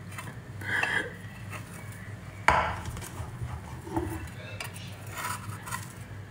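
Kitchen utensils clinking and scraping against a pan and dishes, with one sharp knock about two and a half seconds in.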